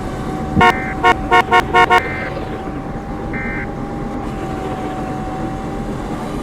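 Vehicle horn honked in a quick series of about six short toots, then once more a second or so later, over steady road noise.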